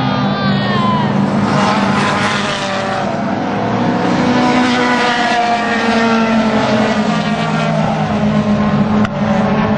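Several classic Japanese race cars passing one after another at full throttle. Their engines overlap, each pitch climbing and falling as the cars change gear and go by.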